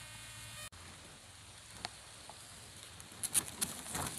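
Rustling and crackling of tall grass and weeds being pushed through on foot, with a quick cluster of crackles about three seconds in. Before that, a faint steady hum cuts off abruptly under a second in.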